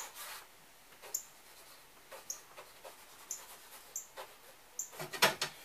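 A wren giving short, high chip calls about once a second: agitated alarm calling. A short burst of scraping near the end is the loudest sound.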